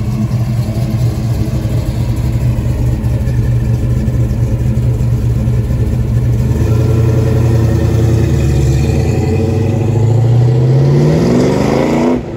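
1960s Ford Mustang fastback's engine rumbling as it pulls out slowly, growing louder about halfway through, then accelerating near the end with a rising pitch before cutting off suddenly.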